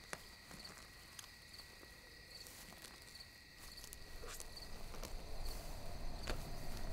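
Crickets chirping at night in evenly spaced short chirps, with a few sharp clicks. A low noise grows louder from about four seconds in.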